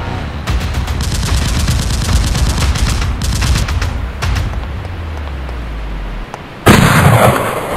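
Battle sound effects: rapid bursts of gunfire, machine-gun style, through the first few seconds, then a sudden loud blast near the end, the loudest sound.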